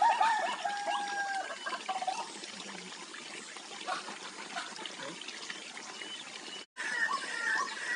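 White-breasted waterhen (ruak-ruak) calls over a steady hissing background. A few short pitched notes come in the first two seconds, then mostly the hiss. After a sudden break near the end, a rhythmic series of repeated call notes follows at about two to three a second.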